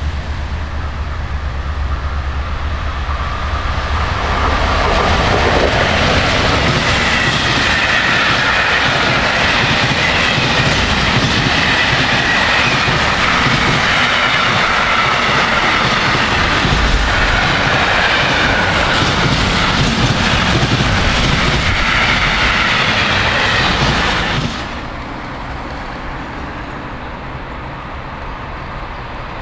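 A train passing close by on the tracks, its wheels clattering along the rails. It builds up a few seconds in, stays loud for about twenty seconds, then drops off suddenly to a quieter steady rumble.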